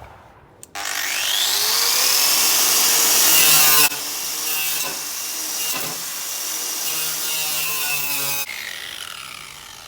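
Electric grinder stripping paint off the sheet-metal cab. The motor starts with a rising whine, the disc works against the paint and metal, and near the end it is switched off and winds down with a falling whine.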